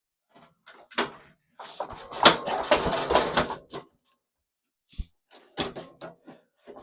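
Metal parts inside a gutted microwave being handled and shifted: a click, then a couple of seconds of scraping and clattering, and a single heavy thud about five seconds in, followed by a few lighter knocks.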